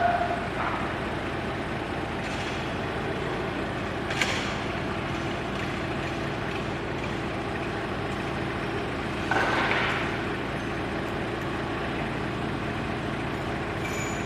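TCM forklift's engine running steadily. A sharp knock comes about four seconds in, and a short noisy burst comes near ten seconds.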